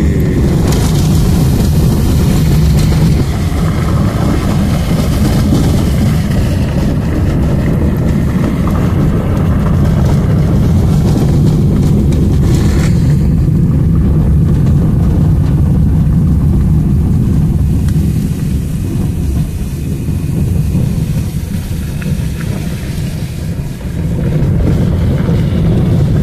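Car driving on a wet dirt road, heard from inside the cabin: a steady low rumble of engine and tyres, with a hiss of rain and spray on the body that eases about halfway through.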